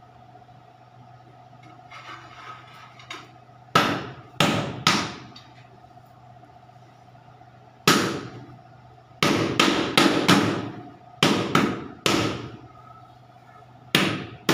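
A large floor tile being struck to bed it into fresh mortar: about a dozen sharp knocks in uneven groups, each ringing briefly.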